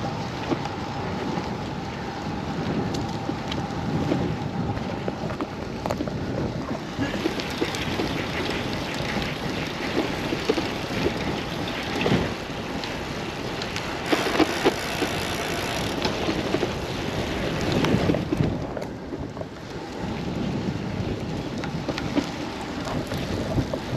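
Wind buffeting the microphone and rolling tyre noise from a vintage steel road bike being ridden. The noise is steady, with some swells and dips.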